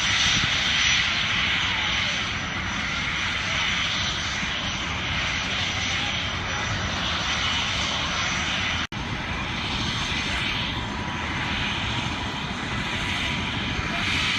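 EMS helicopter's engine and rotors running, a steady loud rush with faint steady tones; the sound cuts out for an instant about nine seconds in.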